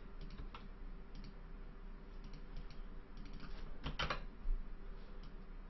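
Faint scattered clicks of a computer keyboard, with a louder pair of clicks about four seconds in, over a faint steady hum.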